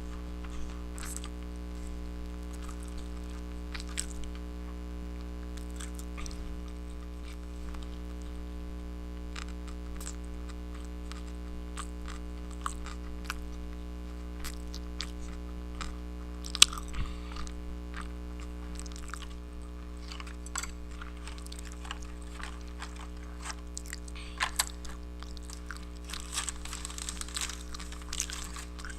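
Close-miked eating: scattered bites and crunches, then a denser run of crisp crunching and chewing near the end, over a steady electrical hum.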